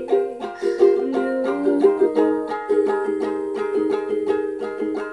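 Ukulele being played: a steady run of plucked notes and chords, several a second.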